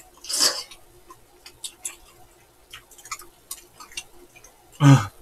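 Eating sounds close to the microphone: a short slurp of glass noodles about half a second in, then scattered small wet clicks of chewing. A brief voice sound comes near the end.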